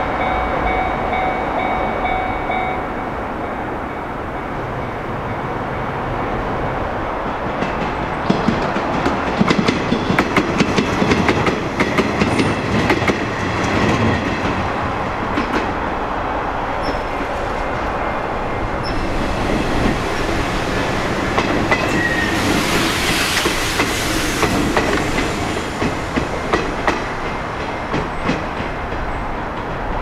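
Electric commuter train passing close by a level crossing, its wheels clattering over the rail joints in a quick run of clicks about a third of the way in. A steady ringing tone sounds at the start and stops about three seconds in, and a rushing hiss swells briefly past the two-thirds mark.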